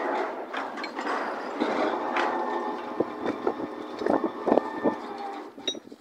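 Log-handling machinery, such as a gantry crane, running with a steady drone and a few level whining tones. Logs knock against each other as slingers work them with hand hooks, with a burst of knocks about three to five seconds in.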